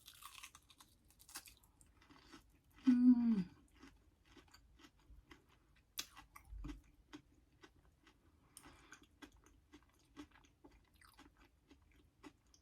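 A person chewing food close to the microphone, with many small irregular crunching clicks. About three seconds in comes a short hummed 'mmm' that falls in pitch.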